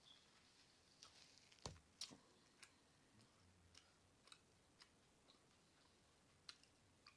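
Faint wet mouth clicks and smacking of someone chewing a large mouthful of bacon cheeseburger close to the microphone: about a dozen scattered clicks, the loudest a little under two seconds in.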